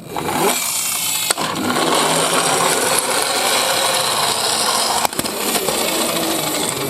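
Toy garbage truck minicars clattering and rattling against one another and the surface in a dense, continuous rattle, with a sharper knock about a second in and another about five seconds in.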